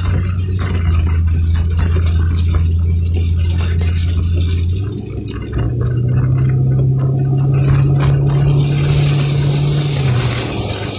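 Vehicle engine droning inside the cab while driving in heavy rain. The drone steps up in pitch about halfway through and drops back near the end, with rain spattering on the vehicle.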